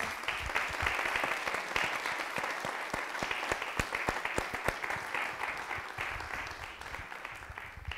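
Audience applauding: many hands clapping together, thinning and dying away near the end.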